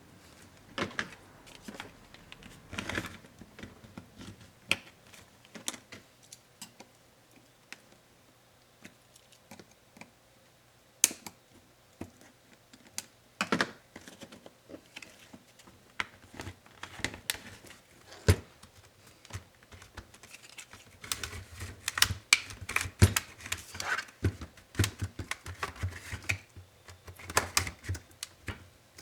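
Irregular small clicks and taps of Dell Inspiron 7558 laptop parts being handled and worked loose during disassembly, busiest in the last third.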